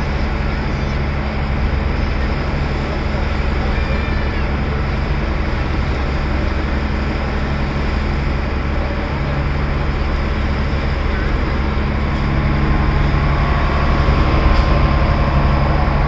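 Passenger boat's engine running steadily under way, a constant low drone over the rush of water and wind; a higher whine joins in during the last few seconds.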